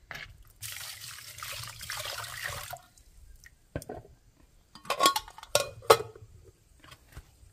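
Water running or pouring for about two seconds, then several sharp knocks and clatters, the loudest a few seconds in.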